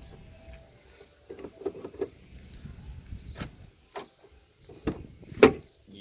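Audi A4 front door lock and latch being worked from the outside handle and the door opened: a series of mechanical clicks and knocks, the loudest near the end.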